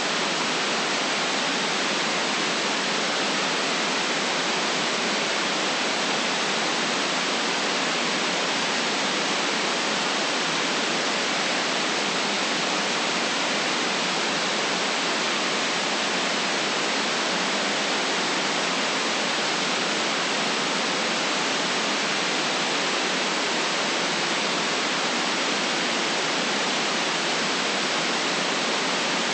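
Steady white noise: an even, unchanging hiss with no deep bass and no top treble, holding the same level throughout.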